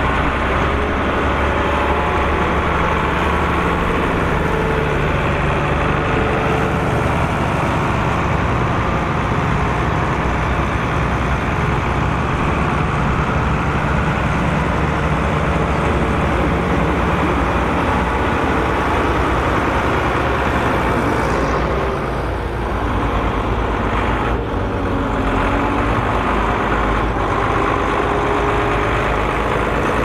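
Volvo BM 2654 tractor's diesel engine running close by, a steady, loud engine note that dips slightly about two-thirds of the way through.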